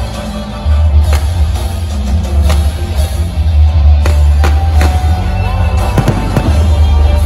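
Music with a heavy bass line and drums, with a few sharp cracks at irregular moments.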